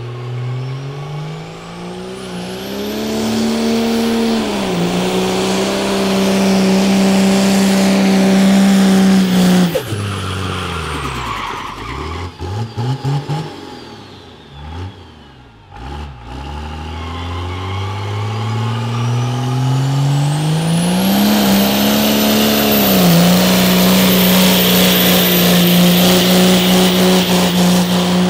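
A burnout car's engine revs up and holds steady high revs while the tyres spin and squeal. About ten seconds in it backs off, blips the throttle several times, then winds up again and holds high revs with the tyre squeal building.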